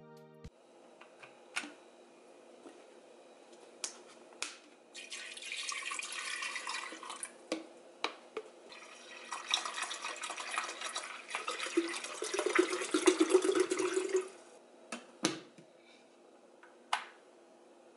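Water poured into a glass electric kettle in two spells, the pitch of the filling rising as the kettle fills. A few sharp clicks come between and after, the last as the kettle's switch is pressed.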